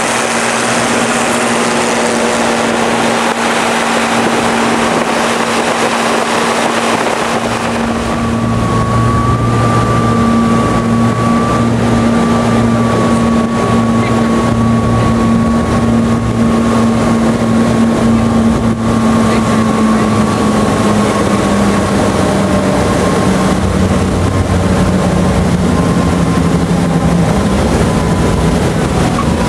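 Light aircraft piston engine and propeller droning steadily with wind rush. The drone gets louder about eight seconds in, and its pitch steps down in the second half.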